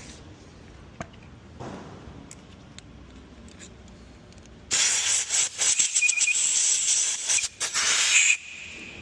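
Compressed air hissing loudly for about three and a half seconds, with a few brief breaks, starting about five seconds in: a blow gun clearing swarf out of a freshly re-tapped bolt hole. Light tool-handling clicks come before it.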